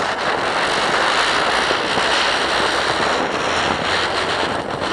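Ground spinner firework (chakri) spinning on the ground, with a loud, steady hiss.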